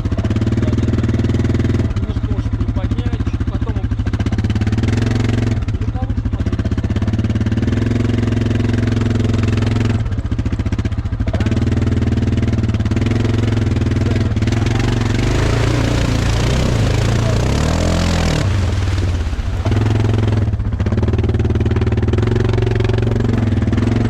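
Quad bike engine running steadily, its revs dropping and climbing again about two-thirds of the way through.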